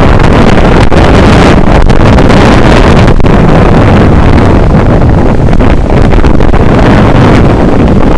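Loud, steady wind buffeting the microphone over the wash of breaking surf.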